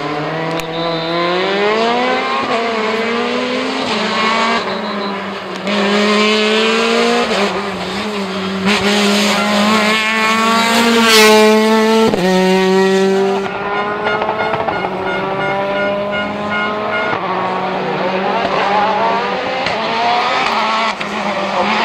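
World Rally Car's 1.6-litre turbocharged four-cylinder engine at full throttle, revs climbing and dropping back with each quick upshift. It is loudest as the car passes close by about eleven seconds in.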